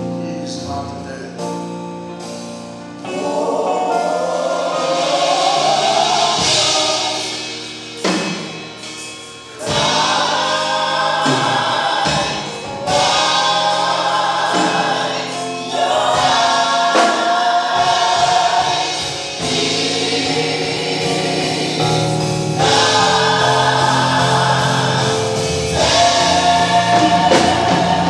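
Church choir singing a gospel song in sustained phrases, with a few brief breaks between phrases.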